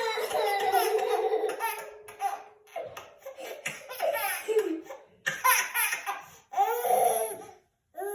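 A baby laughing in repeated high-pitched bursts, with short pauses between them.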